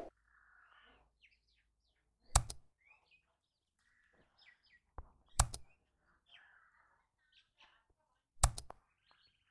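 Small birds chirping and twittering faintly, cut through by three sharp, loud clicks about three seconds apart, the mouse-click sound effects of an on-screen follow-and-like animation.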